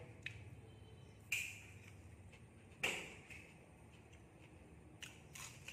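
Quiet eating with chopsticks from a ceramic plate: a handful of short sharp clicks and taps, two louder ones about one and three seconds in with a brief ring after them.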